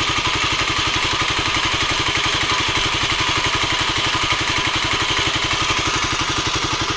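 Kawasaki D-Tracker X's 250 cc single-cylinder four-stroke engine idling with an even beat and a mechanical clatter over it, which the owner asks may be abnormal cam chain noise.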